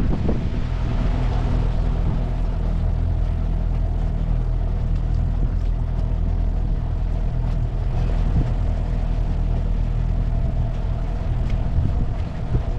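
An engine running steadily with a low, even hum, a few knocks at the very start.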